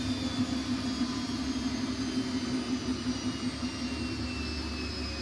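Siemens Siwamat iQ 716 washing machine running in a spin, its motor whining over a steady low hum and rumble; the whine slowly falls in pitch.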